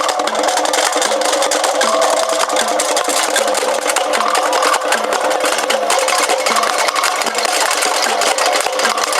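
Percussion-heavy festival street-dance music: fast, continuous drumming with dense clacking, wood-block-like beats over a few steady pitched tones.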